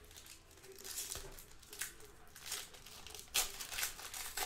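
Foil trading-card pack (2021 Panini Score Football) being crinkled and torn open by hand: a run of irregular crackly rustles, the loudest about three and a half seconds in.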